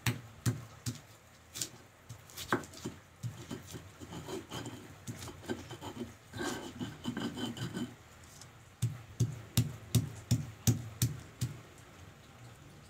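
Stone pestle grinding garlic and seasonings in a stone mortar (Indonesian cobek and ulekan): sharp knocks of stone on stone at about two to three a second, with a stretch of scraping and rubbing in the middle. The strokes stop about a second before the end.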